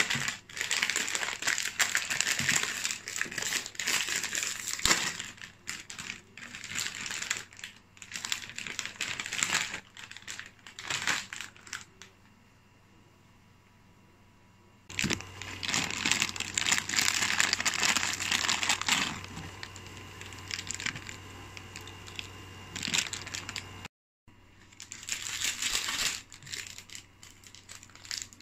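Plastic instant-noodle packet crinkling and rustling in the hands as it is handled and opened and its sachets are taken out, in several stretches with a short lull in between. A faint steady low hum sits under the later rustling.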